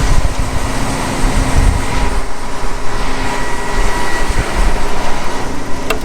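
Heavy farm machinery running: a loud, steady rumble and rattle with a faint steady whine over it, and a single click near the end.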